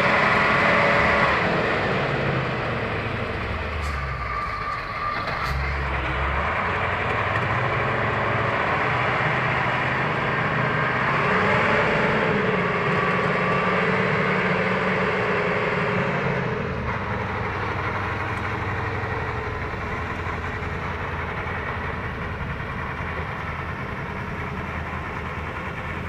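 Heavy logging truck's diesel engine working under load, its pitch rising and falling, with a few knocks about four to six seconds in.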